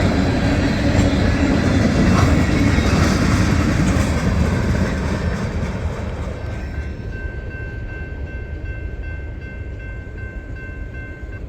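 Freight cars rolling past on steel rails at about 20–25 mph, with a wheel clickety-clack: the end of a long mixed freight train going by. The rumble fades after about five seconds as the last car moves away, leaving a faint steady high tone.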